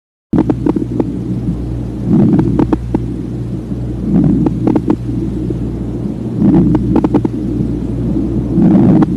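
Breath sounds heard through a stethoscope over the lungs: about four slow breaths, each a low rushing swell, with short sharp clicks during the breaths over a steady low hum.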